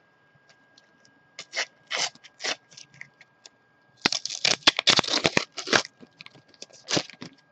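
Foil Panini FIFA 365 sticker packet crinkling and being torn open by hand. There are scattered crackles at first, then a dense run of tearing and crinkling from about four seconds in.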